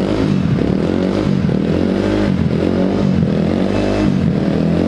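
Motorcycle engine running and being revved, its pitch rising and falling several times.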